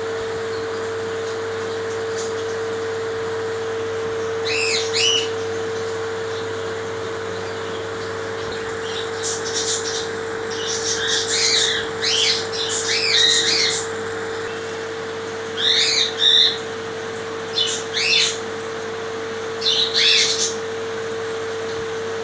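Birds giving high-pitched chirping calls in about five short bouts, the busiest stretch about halfway through. A steady hum runs under them.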